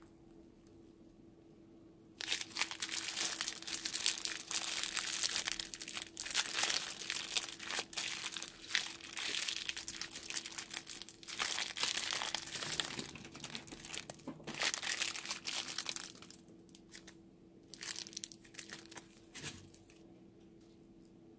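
Plastic piping bag crinkling and crackling as it is squeezed, pushing red slime out onto a bed of foam beads. The crackling starts about two seconds in and runs steadily for some fourteen seconds, then a few short crinkles follow near the end.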